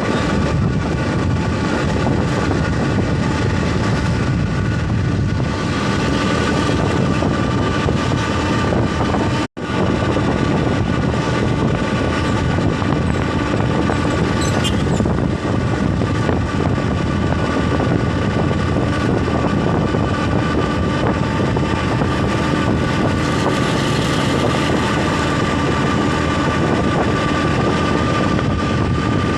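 Vehicle driving on a road: steady engine and road noise with a constant high-pitched whine. The sound cuts out for a moment about nine and a half seconds in.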